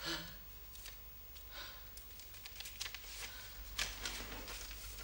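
A man's heavy, gasping breaths, and the short crackles of a paper letter being taken and unfolded in his hands.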